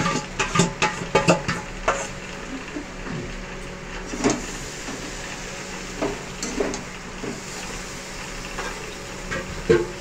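Metal spatula stirring and scraping chicken and potatoes in a metal kadai, knocking against the pan several times in quick succession in the first two seconds and a few more times later, the sharpest knock near the end. Under it the food sizzles steadily as it fries in oil.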